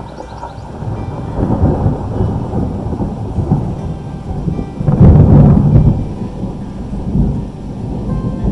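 Thunder rumbling, rolling in about a second in and loudest around five seconds in, with rain falling.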